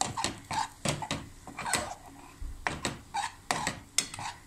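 Steel spoon scraping and clinking against a stainless steel pan while stirring ground walnuts frying in ghee, in quick strokes about three a second, with a short pause midway.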